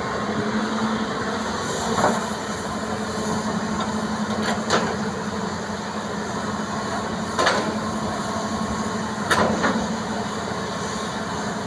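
Hitachi EX200 hydraulic excavator working, its engine running with a steady hum, broken by four sharp clunks a few seconds apart as it loads soil.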